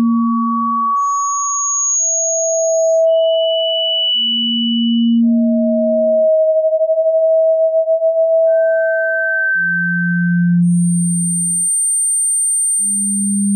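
Electronically generated pure sine tones of a tinnitus-relief sound track, played one after another at scattered pitches from low hums to very high whistles, each held for one to three seconds and often overlapping the next. About halfway through, two tones close in pitch overlap and pulse against each other.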